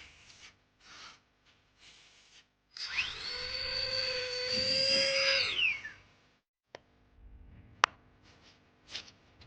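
A small electric hand tool's motor whirs with a steady high whine for about three seconds, then winds down. Light handling noises come before it and a few sharp clicks after.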